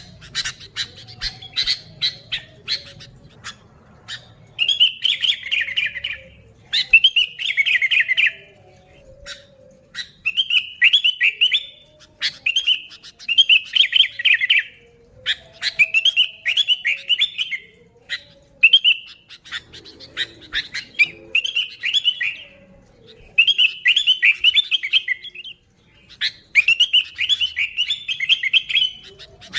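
Sooty-headed bulbul (kutilang) singing vigorously: short bubbly phrases repeated about every two seconds. The first few seconds hold a run of sharp, rapid chattering calls.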